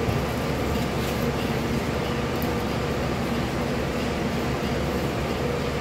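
Steady mechanical drone of a running fan or ventilation unit, even and unbroken throughout.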